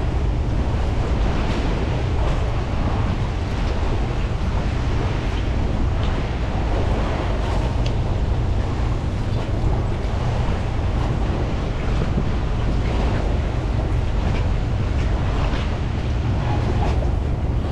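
Wind buffeting the microphone with a steady low rumble, over choppy water slapping and sloshing around steel pier pilings.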